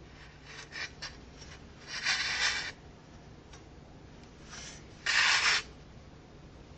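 Rusty steel wire parts of an old bird feeder handled with a gloved hand, rubbing and scraping against each other, with two louder scrapes about two seconds in and about five seconds in.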